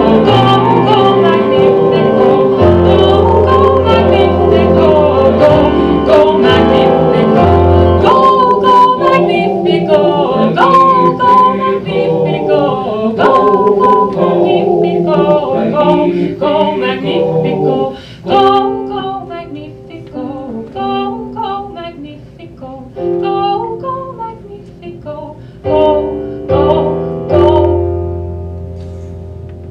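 Song on a Casio Privia digital piano with a woman singing. It is full and sustained at first, with a wavering sung line. About two thirds of the way through it thins to sparse chords and fades out near the end.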